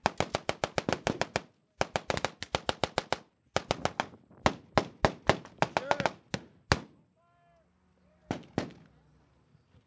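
Blank gunfire in rapid bursts of about eight to ten shots a second, from automatic weapons in a mock battle. Midway the firing pauses for a man's shout, then two more shots crack out.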